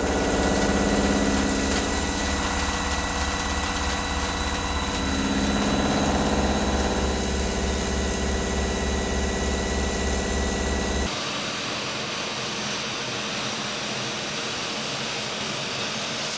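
CNC milling machine cutting a metal block with a Silent Tools dampened milling adapter: a steady cutting sound with a fast low throb and a high tone, free of chatter. About eleven seconds in it changes abruptly to a lathe turning the inside of a part with a dampened boring bar, an even hiss.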